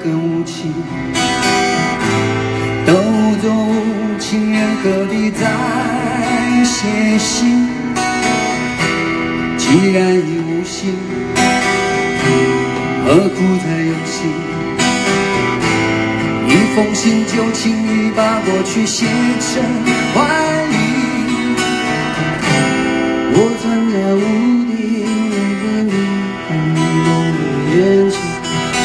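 Live acoustic performance: two acoustic guitars strummed and picked together, with a man singing over them.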